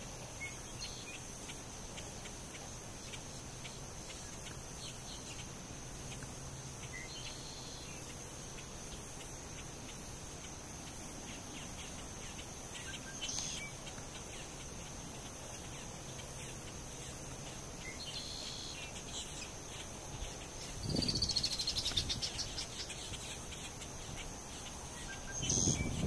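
Marsh ambience: a steady high insect drone with scattered short bird chirps. About three-quarters through comes a brief low thump and a louder descending rattling bird call.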